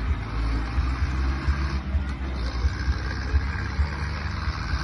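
Zetor 7211 tractor's diesel engine running as it drives a slalom course, a steady low engine sound with wind buffeting the microphone.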